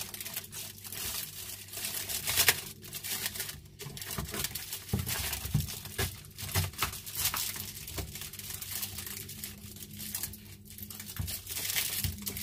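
Taped plastic wrapping crinkling and tearing as it is cut open with scissors, in an irregular run of rustles and crackles, one of them loud and sharp about two and a half seconds in.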